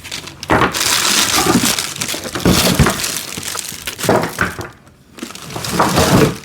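Plastic packaging wrap crinkling and crackling as parts are pulled out of a box, in two loud stretches with a short pause about five seconds in.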